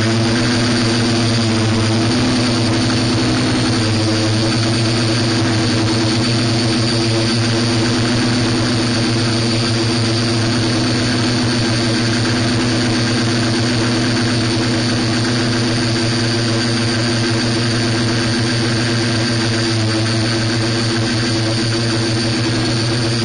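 Electric motors and propellers of a camera-carrying RC multirotor, heard through its onboard camera: a steady hum of several tones with a faint high whine above, unchanging while it hovers.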